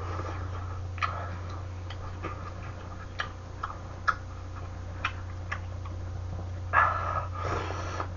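A person eating chewy noodles and rice cakes: sharp smacks and clicks every second or so, then a longer slurp of noodles near the end, over a steady low hum.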